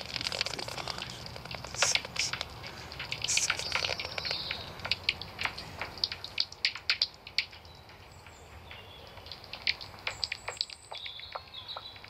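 Noctule bats chattering at the entrance of their tree-hole roost: quick runs of short, high squeaks and clicks, busiest in the first half and thinning out toward the end.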